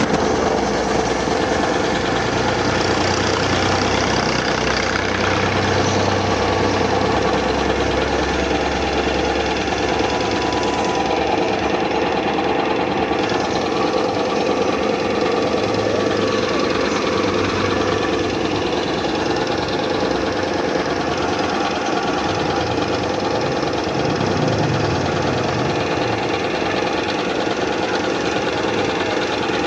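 5 hp Puma high-pressure piston air compressor running steadily.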